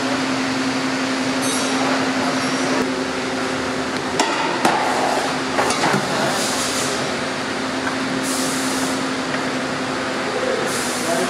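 Steady hum of an electric pedestal fan, with a few sharp metal clicks and taps from assembly work around the middle and three short hisses in the second half.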